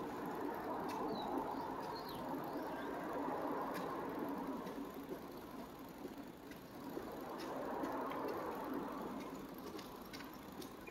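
Steady rumbling background noise inside a concrete tunnel, slowly swelling and fading, with a few faint clicks and two small high chirps in the first couple of seconds.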